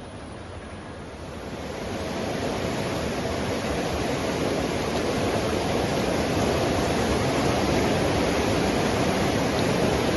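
Steady rush of a waterfall, growing louder over the first two seconds and then holding steady.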